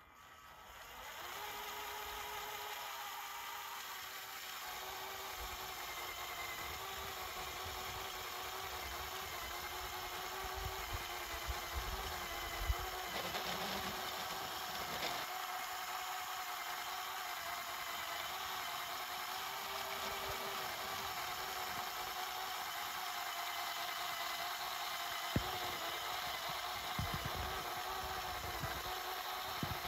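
Small electric motors of a Lego snow-blower train whining steadily as it ploughs and throws powder snow. Three motors are running: the blower motor at the front and two train motors. The whine starts about a second in, and its pitch wavers slightly as the load changes.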